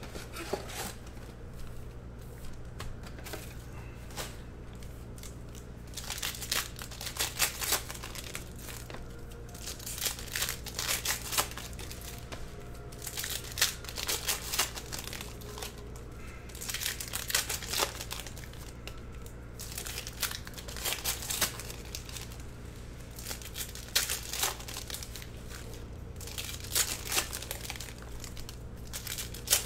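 Trading-card pack wrappers being torn open and crinkled, in bursts every few seconds, over a steady low hum.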